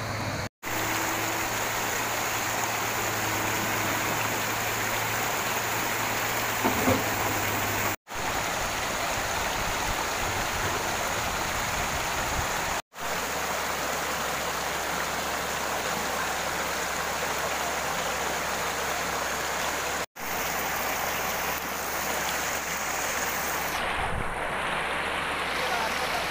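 Steady rush of a shallow, fast river running over rocks and rapids, cutting out abruptly four times for a split second.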